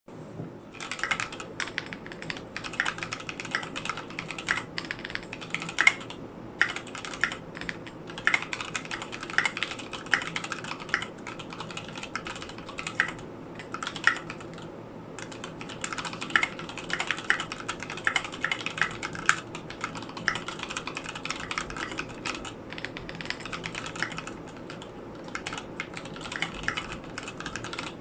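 Continuous typing on a mechanical keyboard with unlubed Gateron Mint switches fitted with Sprit 65 springs, tall SA keycaps and an E6-V2 case: rapid, irregular keystroke clicks and clacks with a few short pauses.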